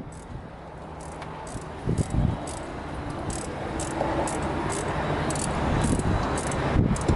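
Insects chirping in short high-pitched pulses about twice a second, over a steady low hum, with a couple of dull low thumps.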